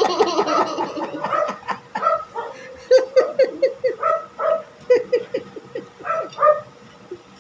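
A small dog yipping and whining: a quick run of short, high yelps, each falling in pitch, a few each second, easing off near the end.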